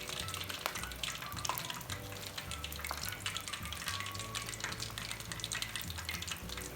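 Hot oil crackling and popping as food deep-fries, with background music carrying a steady low beat underneath.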